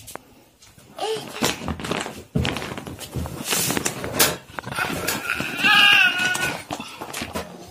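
Clear plastic storage bag crinkling and rustling as it is handled with a plush toy inside. About six seconds in there is a short high, wavering vocal sound.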